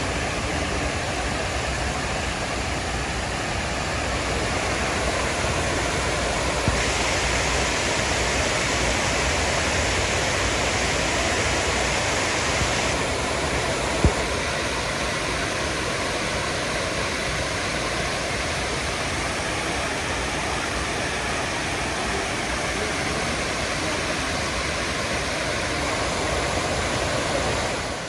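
Steady rush of water cascading down the granite walls of the 9/11 Memorial reflecting pool into the basin, turning hissier for several seconds partway through.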